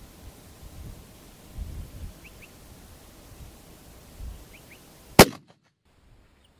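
A single 6.5 Creedmoor rifle shot from a HOWA APC fired through a three-port muzzle brake, sharp and loud about five seconds in, with the sound cutting off right after it. Before it, low wind rumble on the microphone and a few faint chirps.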